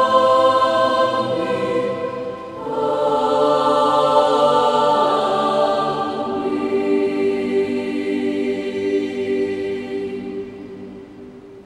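Choir singing held chords in several parts, breaking briefly about two and a half seconds in, then settling on one long chord that dies away near the end.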